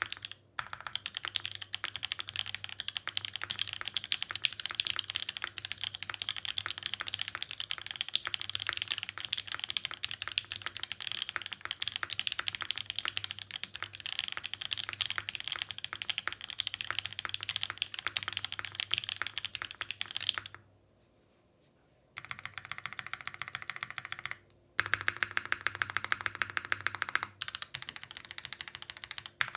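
Rapid, continuous typing on an Iron165 mechanical keyboard with a polycarbonate case, an undampened ABS plate, OPblack switches lubed with Krytox 205g0 and filmed, and GMK keycaps. The typing stops for about a second and a half roughly two-thirds of the way through, then resumes.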